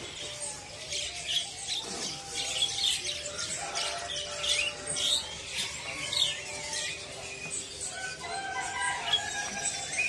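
Many caged songbirds chirping and calling at once: a dense stream of short high chirps and quick sweeping whistles.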